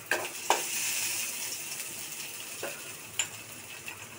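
Mango ginger and dried red chillies sizzling in hot oil in an aluminium kadai for a tempering; the sizzle swells about half a second in and slowly dies down. Two sharp clacks come near the start and two lighter ones later.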